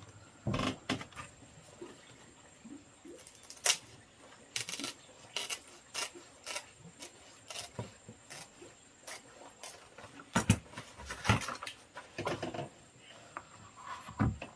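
Irregular clicks, taps and rustles of objects being handled, in scattered single strokes and short clusters, loudest a little past the middle.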